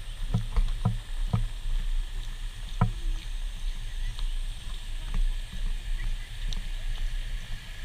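Footsteps on a walking path: a handful of irregular knocks and thumps, mostly in the first three seconds, over a steady low rumble.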